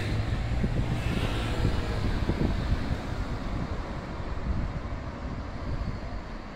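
Road traffic: a car passes close by and drives away, over a steady low rumble of street traffic. It is loudest in the first three seconds and then eases off.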